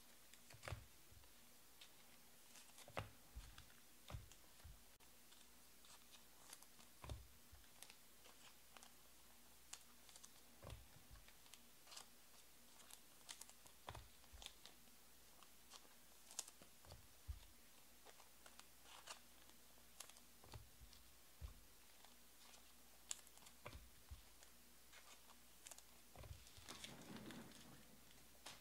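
Near silence: quiet room tone with faint, irregular clicks and taps every second or two, and a brief rustle near the end.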